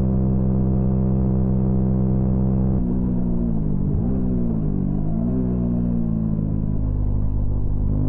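Honda CB125R's single-cylinder four-stroke engine pulling at steady revs. About three seconds in, the engine note dips and rises twice as the throttle is eased off and reopened, then climbs again near the end.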